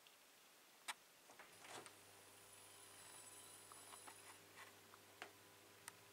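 A sharp click about a second in, then the magnetic ballast of a Philips HPL-N 1000 W mercury vapour lamp starts a low, steady hum as the lamp strikes and begins warming up. A faint high whine runs for a few seconds, with scattered light ticks throughout.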